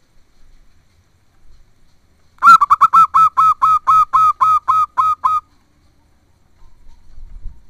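Zebra dove (perkutut) calling: a rapid run of about a dozen short, nasal cooing notes, about four a second, lasting some three seconds.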